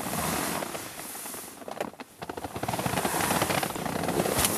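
Padded jacket and sleeping bag fabric rustling and crinkling as a person stretches in bed, with a brief lull about two seconds in.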